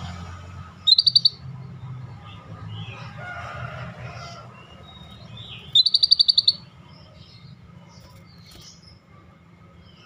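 Scaly-breasted bulbul giving two quick runs of rapid high repeated notes: a short one about a second in and a longer, louder one about six seconds in. Faint scattered chirps fill the gaps.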